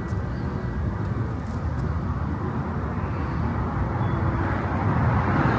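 Steady low rumbling background noise with no clear events, growing a little louder near the end.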